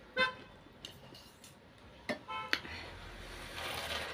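Metal fork and chopsticks clinking against a ceramic noodle bowl: a few sharp clinks with a brief ringing, the loudest just after the start and another pair about two and a half seconds in. A rising rush of noise follows near the end.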